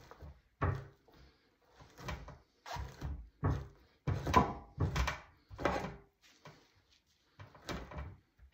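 A two-handled fleshing knife scrapes flesh and fat off a beaver pelt stretched over a wooden fleshing beam. It goes in short repeated strokes, roughly one or two a second, with a brief pause a little past halfway.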